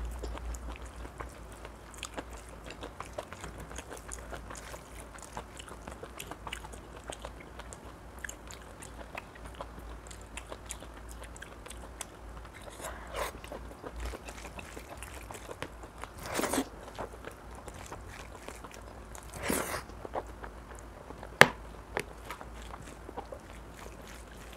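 Close-miked chewing and wet mouth clicks of someone eating mutton curry. Three longer, louder mouth sounds come in the middle, and a single sharp click near the end is the loudest.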